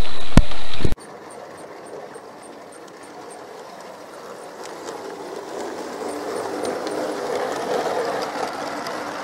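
Model diesel locomotive on a garden railway approaching with a train of hopper wagons: a steady mechanical rattle of wheels and running gear on the track with a light, regular clicking, growing louder as it nears. It is preceded by about a second of loud, distorted noise from a small camera riding on the train, which cuts off suddenly.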